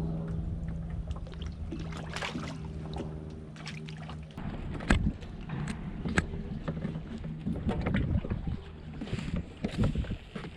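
Handling noise on a fishing kayak: knocks and clatter of gear against the hull, with a few sharper thuds about halfway through. A steady low hum runs under the first few seconds, then stops.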